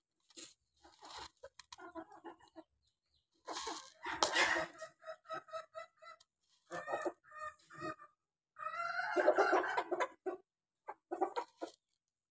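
Chickens calling: a run of short, evenly pitched clucks in the middle, then a longer, louder call about nine seconds in, and a few more short clucks near the end.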